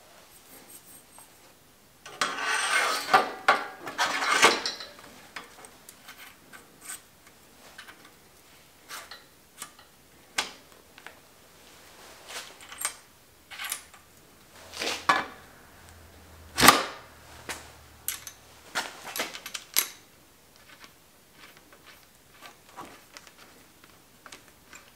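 Bicycle suspension fork, headset parts and stem being fitted onto a steel frame's head tube by hand: scattered metal clicks and knocks of parts and tools, with a couple of seconds of scraping and rustling about two seconds in and one sharp knock about two-thirds of the way through.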